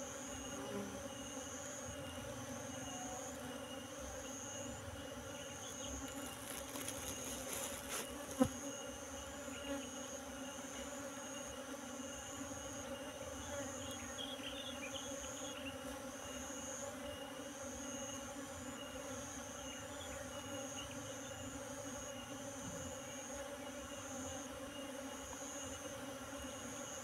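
A colony of Asian honeybees (Apis cerana) buzzing in a steady, dense hum as they crawl over cardboard and into a wooden hive box. A high insect call pulses about every second and a half in the background, and there is a single sharp tap about eight seconds in.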